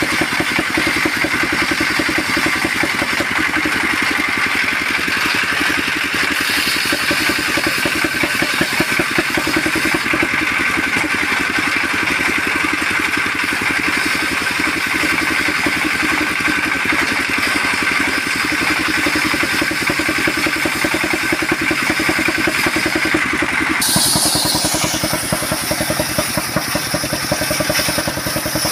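Diesel engine running steadily while it drives, by belts, a large circular saw blade ripping a waru log lengthwise. Near the end the cutting sound changes, leaving a higher blade whine over the engine.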